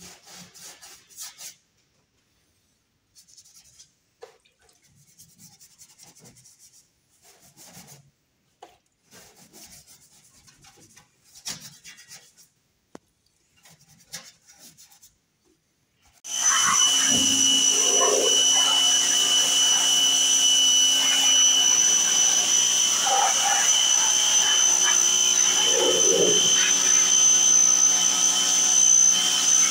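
Hand scrubbing with a sponge under a car bonnet, in short irregular rubbing strokes. About sixteen seconds in, a pressure washer starts up and runs steadily with a high whine and the hiss of the spray, washing the engine bay.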